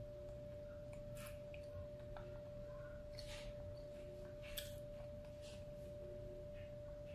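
Faint, wet chewing and mouth sounds a few times over several seconds, with a steady pure tone humming underneath.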